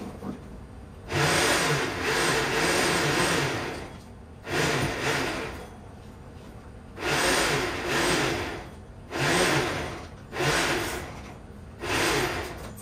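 VEVOR electric hoist motor winching up a 30 hp Suzuki outboard. It runs in about six separate spurts of one to three seconds each, stopping and starting between them.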